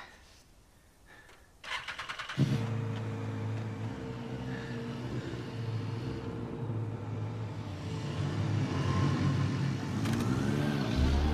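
A sport motorcycle's engine being started: about two seconds in, a brief run of rapid clicks as the starter cranks, then the engine catches and runs at a steady idle. Near the end the revs rise as the bike pulls away.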